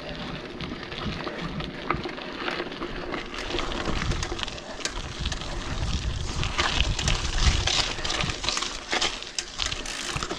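Mountain bike riding down a dirt forest trail: tyres rumbling over dirt and stones, with many sharp clicks and rattles from the bike and wind buffeting the microphone.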